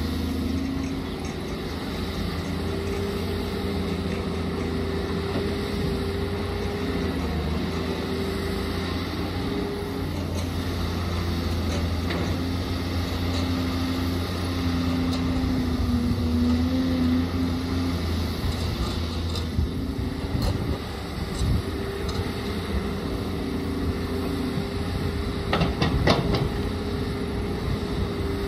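Caterpillar 320C hydraulic excavator's diesel engine running steadily under digging load, its note drifting slightly as the hydraulics work. A few sharp knocks come in the last third.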